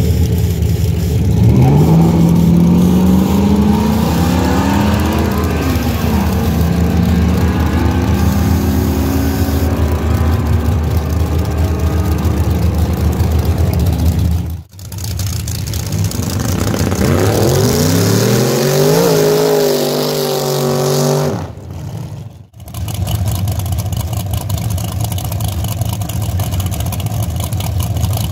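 Drag race cars' engines accelerating hard down the strip, the pitch climbing and dropping back at gear changes before climbing again. The sound cuts off abruptly twice, about halfway through and again a few seconds later, and then a steadier engine note carries on.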